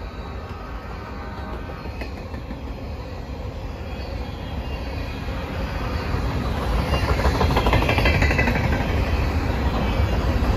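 Covered hopper cars of a freight grain train rolling past, their steel wheels running on the rails, with a continuous rolling noise that grows louder from about seven seconds in.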